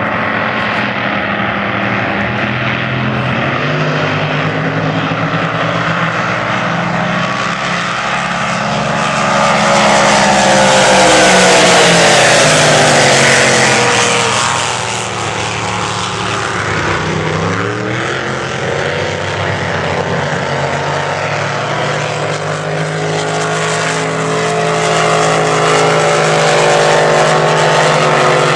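Several supercharged racing powerboats running flat out and passing by. The engines grow loudest about a third of the way in, then fall in pitch as the boats go past. The engine note swells again near the end.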